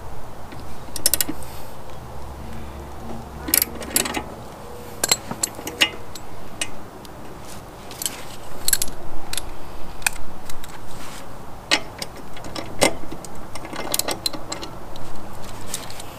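Socket wrench ratcheting and metal tools clinking while the lawn mower's blade bolt is tightened: irregular clicks and clinks, some in quick runs.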